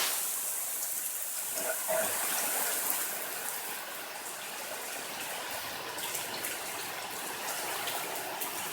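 Steady hiss of light rain falling, with faint scattered ticks of drops.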